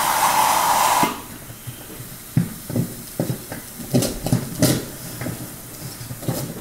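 Liquid nitrogen hissing loudly from the dispensing nozzle into the steel mixing bowl, cutting off suddenly about a second in. A few soft knocks and clatters follow.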